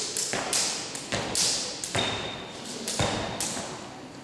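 Skipping rope smacking a hard sports-hall floor together with sneakers landing: a quick run of sharp slaps, about three a second, each echoing briefly in the large hall, thinning out in the last second. A couple of short high squeaks come in about two and three seconds in.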